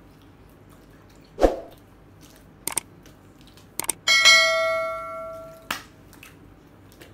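Subscribe-button sound effect: a couple of mouse clicks, then a bell ding that rings for about a second and a half and fades out. A dull thump comes a little before, about a second and a half in.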